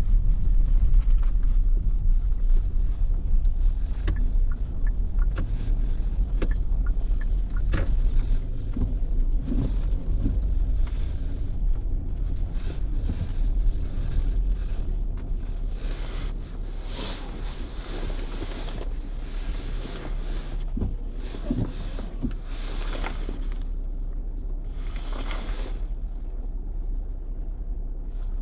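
Steady low rumble of a vehicle on the road, with scattered light ticks and several swelling whooshes in the second half.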